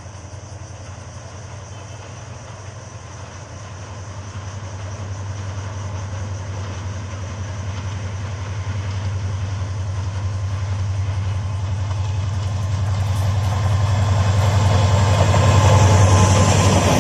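Diesel locomotive of a passenger train running with a steady low drone that grows louder as the train approaches. Near the end the rolling rumble of the passenger coaches passing close by joins it.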